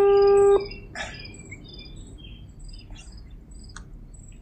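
Small birds chirping in many short, high calls, repeated throughout. A loud, steady held tone sounds for about the first half second, then stops.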